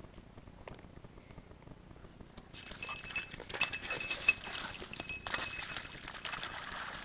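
A dog's hunter safety bell jingling as the dog moves, starting about two and a half seconds in, mixed with sharp crunching and splashing as it steps through icy shallow water.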